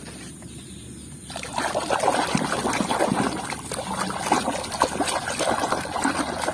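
Water splashing and trickling as a plastic toy animal is rinsed and scrubbed by hand, starting about a second in.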